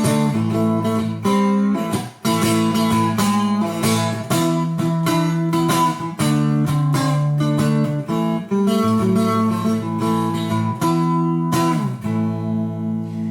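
Three-string cigar box guitar tuned to open A (A, E, A), played through a guitar amp with a clean tone and a little reverb. A continuous run of picked notes and strums rings over sustained low notes.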